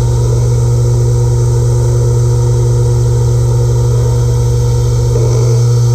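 Converted Precision Matthews PM-30MV milling machine running steadily, its end mill cutting the steel Glock 19 slide: a loud, unbroken machine hum with steady higher tones over it.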